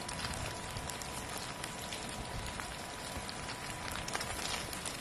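Eggs and ginger slices frying in plenty of hot oil in a pan, a steady sizzle full of small crackles and spatters, with rain pattering around.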